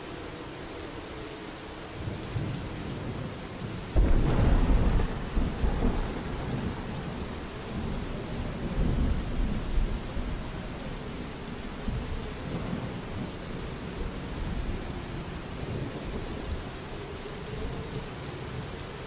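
Steady rain falling, with a sudden loud clap of thunder about four seconds in that rumbles on in swells for several seconds before easing back.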